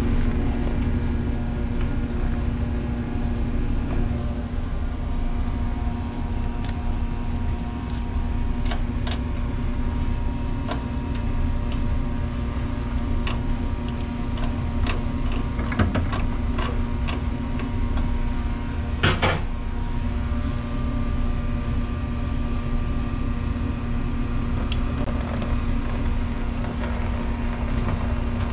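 ADS water saver L commercial dishwasher motor running with a steady, loud hum and rumble; the motor's bearing has gone bad. A few sharp clicks and knocks come through, the loudest about nineteen seconds in.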